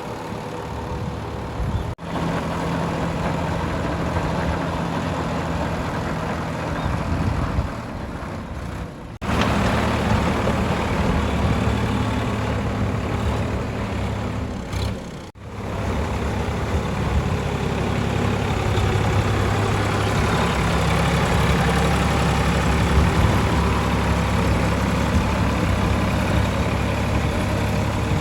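Sonalika DI 745 tractor's diesel engine running steadily, working a rotavator through wet paddy-field mud. The sound breaks off and jumps abruptly three times.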